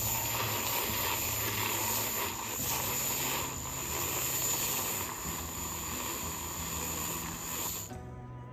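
Handheld battery milk frother running in a mug of warm plant-based milk, a steady whir with the hiss of the whisk whipping the milk into foam. It cuts off abruptly about a second before the end.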